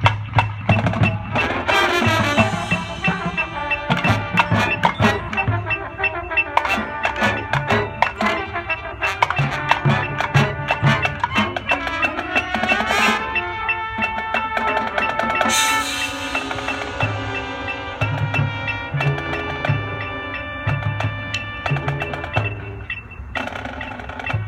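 Marching band playing a section of its show: mallet and drum percussion with pitched instruments. A steady electronic metronome click ticks evenly through the music.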